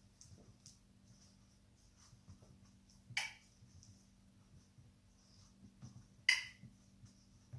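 Two sharp clicks about three seconds apart, the kind of marker sound used in dog training, with faint small rustles between them.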